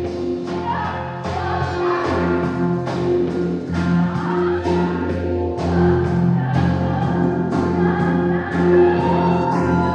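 Live improvised band music: singing over held low notes and a steady beat of percussion hits, about three every two seconds.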